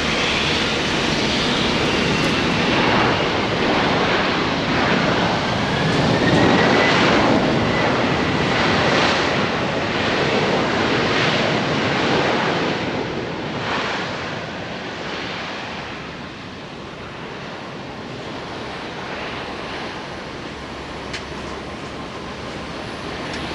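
Jet engines of a Boeing 767-300ER airliner landing: a loud, steady engine noise with a whining tone gliding in pitch. It is loudest about six seconds in and dies down after about fourteen seconds.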